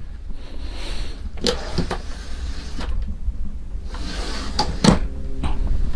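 A few sharp knocks and bursts of rustling over a steady low rumble.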